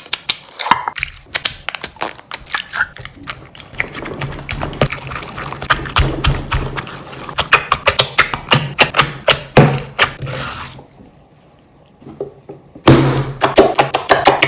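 Rapid crackling and tapping of something being crushed. It stops for about two seconds near the eleven-second mark, then a second dense burst of crackles follows.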